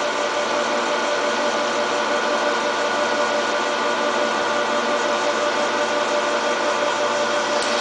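Turnpro 14" x 40" bench lathe running steadily under its 2 hp single-phase motor, spindle and gearing turning in reverse with a steady whine over a mechanical hum.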